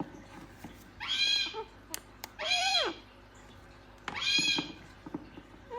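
Gang-gang cockatoo vocalising: three drawn-out calls, each about half a second long and spaced evenly. The second call drops steeply in pitch at its end.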